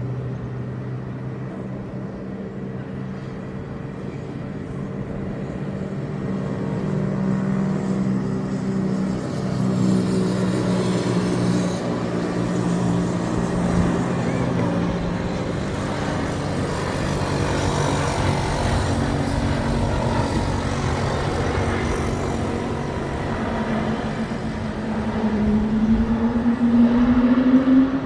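Embraer E195-E2 jet landing: several steady engine tones drift slowly lower, then in the last few seconds a tone rises steeply and gets loud before cutting off, the type's well-known 'whale sound' on landing.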